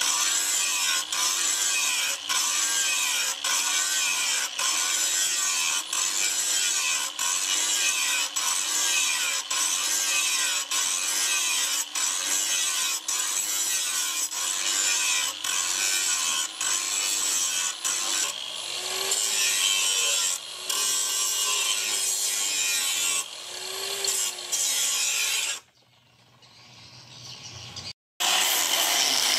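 Angle grinder with an abrasive flap disc grinding a steel blade. The grinding dips about once a second as the disc is worked along the steel. Near the end it drops away and stops briefly, then grinding starts again at full level.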